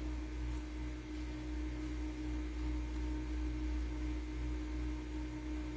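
Steady background hum with a constant low drone and a single unchanging tone above it, like mains or appliance hum in a small room.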